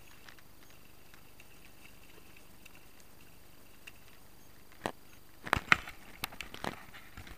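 European sea bass thrashing at the surface beside a kayak as it is reeled alongside: a quiet lull, then from about five seconds in a quick run of sharp splashes.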